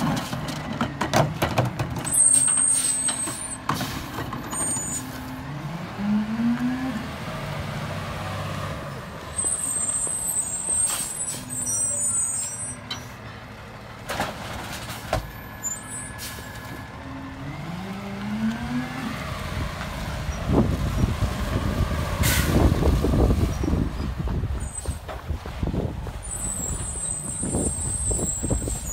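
Freightliner M2106 garbage truck with a Heil Durapack 5000 rear-loader body at work. The diesel engine revs up twice, sharp knocks come from bins striking the hopper, and air brakes hiss three times. The engine runs louder near the middle as the truck pulls ahead.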